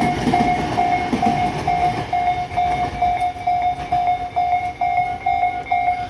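Japanese level-crossing warning bell ringing steadily, about two dings a second, while the crossing stays closed. Under it, a Tobu 60000 series electric train rumbles across the tracks, fading out after about two seconds.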